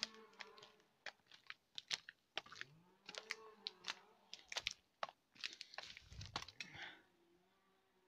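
Footsteps crunching over the forest floor and through dry fallen branches, a quick irregular run of twig snaps and cracks that stops about seven seconds in.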